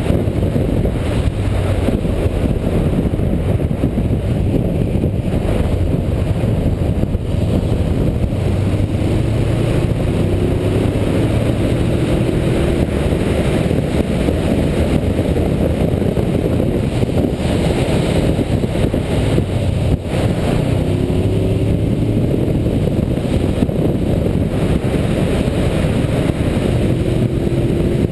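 Suzuki GS500 motorcycle's parallel-twin engine running on the move, largely buried under heavy wind rush on the onboard microphone. The engine note rises briefly a few times as the bike accelerates.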